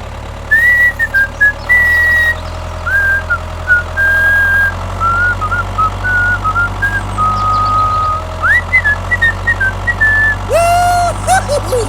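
A tune whistled in short held notes that step up and down in pitch, over a steady low engine hum.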